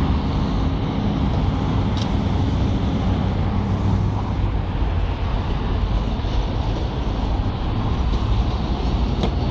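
Volvo crawler excavator's diesel engine running steadily, a deep continuous drone.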